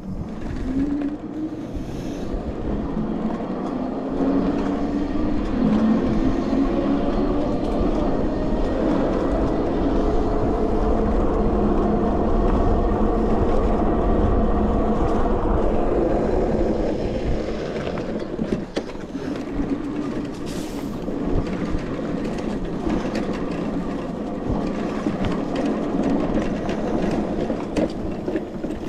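Sondors MadMods electric bike's hub motor whining while riding, its pitch climbing over the first few seconds as the bike speeds up, over a steady low rumble. The whine eases off after about seventeen seconds.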